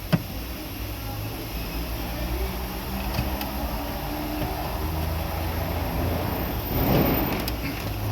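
A single sharp click just after the start, then a steady low mechanical hum running on, with a brief rustling swell near the end.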